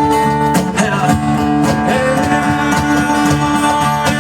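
A live band playing an instrumental passage between sung lines of a country-rock song, with guitar to the fore over a steady beat.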